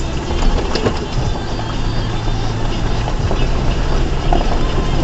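A 2004 Ford Ranger pickup's engine running steadily at low revs while it drives slowly over rough trail, with scattered knocks and rattles over the rough noise of the ground.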